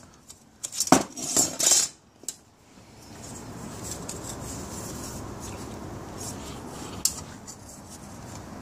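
Metal clinks and clatter, several knocks in the first two and a half seconds, as the metal chassis plates of an RC crawler are handled, then a steady faint hiss with one more click near the end.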